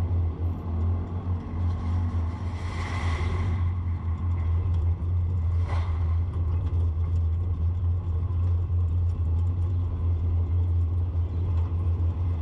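Car driving, with a steady low engine and road rumble. A brief rush of noise comes about two to three seconds in, and a short sharp sound about six seconds in.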